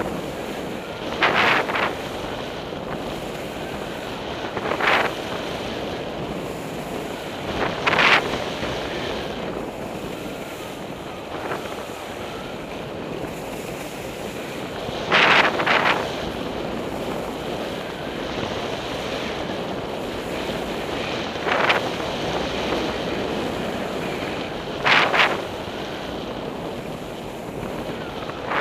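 Wind rushing over a helmet-mounted camera's microphone as a skier descends a spring snow slope, with a short scrape of the ski edges on the snow every few seconds as each turn is carved.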